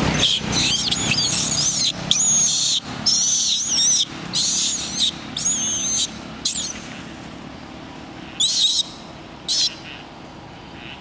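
Baby macaque crying: repeated high-pitched, wavering squeals, one after another for about seven seconds, then two more near the end. These are distress cries of an infant calling for its mother.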